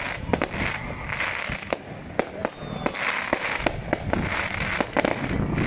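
Fireworks going off: irregular sharp cracks and pops, several a second, over a steady hiss.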